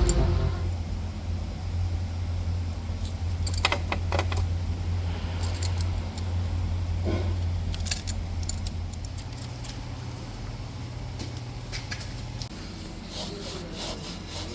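Light metallic clinks and jingles, several scattered short ones, over a low steady hum.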